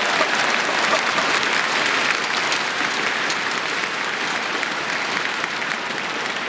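Spectators applauding, many hands clapping together, the clapping slowly dying down.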